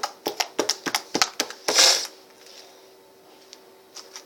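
Homemade glue-and-borax slime being worked in the hands, giving a quick run of sharp clicks and pops and a louder squelch just before two seconds in, then only a few faint clicks.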